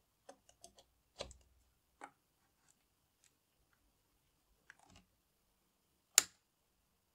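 Small plastic clicks and knocks as a mains plug is pushed into a wall socket and a connector is seated in a 3D-printed power-supply case, then one loud, sharp click of the case's switch being pressed about six seconds in.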